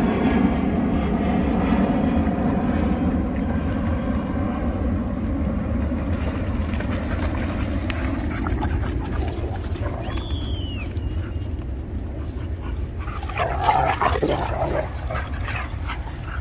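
A sheepadoodle and a pit bull playing rough in shallow surf: water splashing steadily as they run and wrestle, a short falling yelp about ten seconds in, then a burst of play growling and barking near the end.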